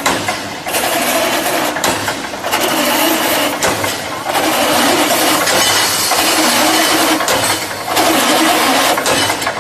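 Automatic brick force wire mesh welding machine running: a loud, continuous mechanical noise with a low hum, dipping briefly every second or two as the machine cycles.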